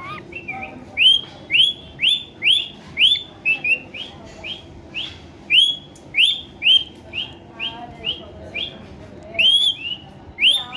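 Pet rose-ringed (ring-necked) parakeet calling over and over: short, sharp, high chirps, each sweeping upward, about two a second.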